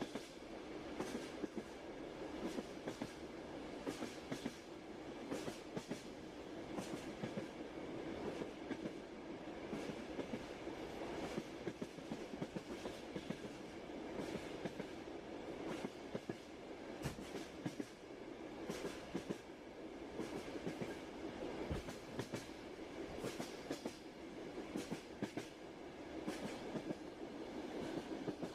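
Train wheels on the rails: a steady rolling rumble with a repeated clickety-clack of wheels over rail joints, about one or two clicks a second.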